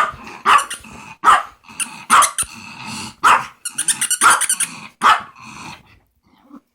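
A pet dog barking repeatedly, about seven sharp barks roughly once a second, stopping about six seconds in: demanding barks at a treat or toy being held out.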